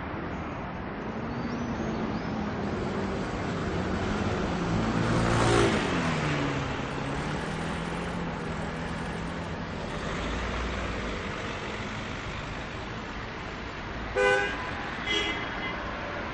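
Street traffic: steady road noise, with one vehicle passing loudly about five seconds in, its engine pitch falling as it goes by. Near the end, a car horn gives two short toots.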